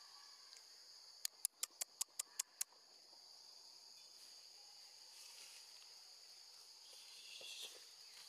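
Faint, steady high-pitched insect chorus. A little over a second in comes a quick run of eight sharp clicks, about five a second, the loudest thing here.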